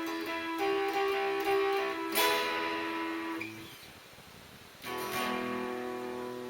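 A guitar playing: single picked notes, then a strummed chord about two seconds in that rings out and fades, and another strum near the end.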